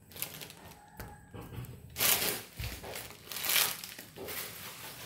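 Crinkling and rustling of something being handled, coming in uneven swells, loudest about two seconds in and again about three and a half seconds in.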